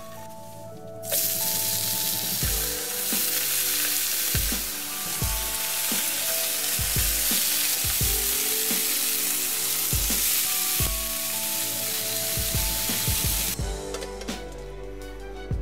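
A loud steady hiss starts suddenly about a second in and cuts off shortly before the end. Background music with a regular low beat runs underneath.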